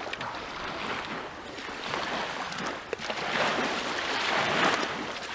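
Small waves washing up on a sandy shore, the wash swelling and easing twice, with a brief click about three seconds in.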